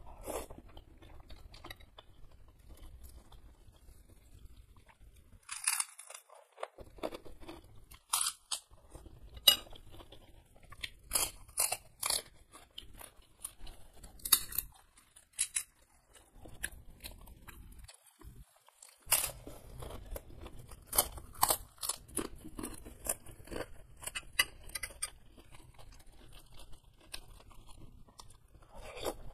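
Close-up eating sounds: a mouthful of noodles being chewed, then crisp, sharp crunches of a large kerupuk cracker being broken and bitten, coming in clusters from about five seconds in.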